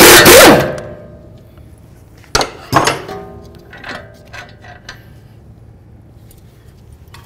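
Impact wrench hammering on the strut-to-knuckle bolt, stopping about half a second in. About two seconds later come two sharp metallic clinks with a short ring, then a few lighter clicks as the loosened bolt is handled.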